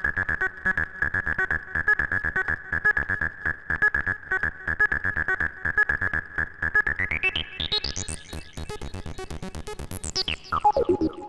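Eurorack modular synthesizer built around a Kassutronics VCO 3340 analog oscillator, playing a fast run of sequenced staccato notes with a bright, steady tone. About seven seconds in, the sound sweeps steeply upward into a shrill top, then drops sharply near the end.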